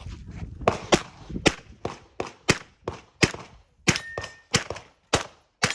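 A fast string of about a dozen pistol shots in a USPSA stage, with the ring of steel targets being hit; one hit leaves a short ringing tone about four seconds in.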